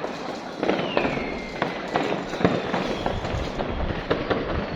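Fireworks going off: a rapid string of sharp bangs, with a high whistle gliding down in pitch during the first two seconds.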